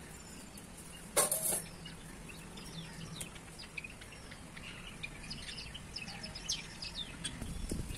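Small birds chirping and calling in short quick notes throughout. A brief loud scraping clatter about a second in.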